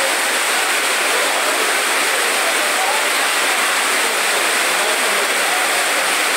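Torrential rain pouring down with floodwater running, a loud, steady hiss that does not let up.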